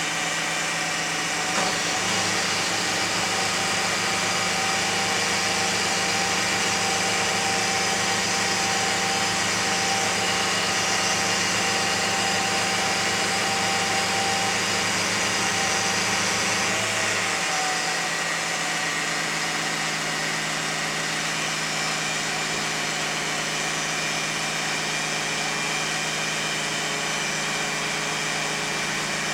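2001 Lexus RX300's 3.0-litre V6 running steadily with the whining noise the owner is chasing. A click comes about a second and a half in, then a deeper steady hum joins the running sound and drops out again after about fifteen seconds.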